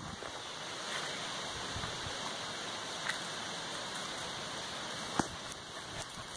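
Steady outdoor background hiss, with a few faint clicks and one sharper click about five seconds in.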